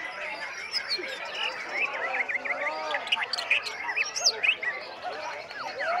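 Many caged white-rumped shamas singing at once in a contest: a dense, unbroken tangle of whistles, chirps and sliding notes, the featured shama singing hard among them.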